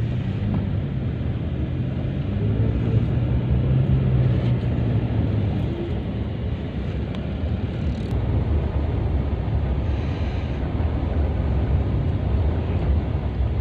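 Moving vehicle's engine and road noise, a steady low rumble with a faint engine hum in the first half.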